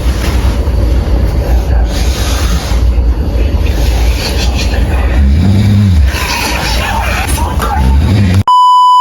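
Loud snoring close to the microphone: a rough, low rattling breath, with one pitched snore rising and falling about five seconds in.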